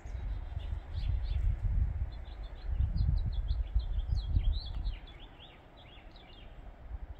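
Small birds chirping in quick, repeated short notes over a low rumble on the microphone that lasts about five seconds and then drops away.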